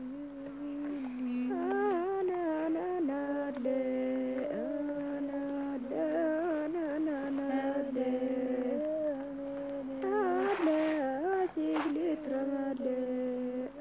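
A slow solo melody of long held notes that bend and waver, with small ornaments between them.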